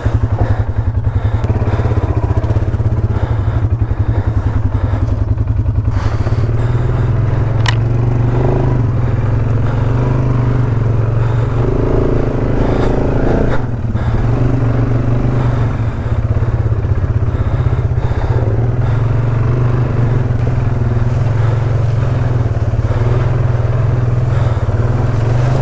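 ATV engine running steadily close to the microphone, with occasional scraping and clattering over it.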